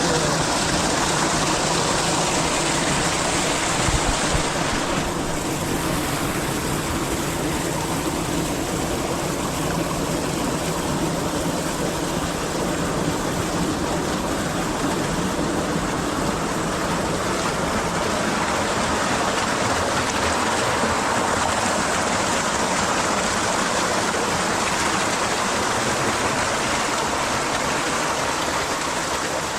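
Steady rushing of a hot-spring river's flowing water.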